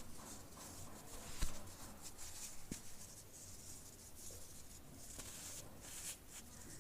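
Compressed baking soda being crushed and crumbled by hand: a stream of soft, dry crunches and crackles, with one sharper snap about one and a half seconds in.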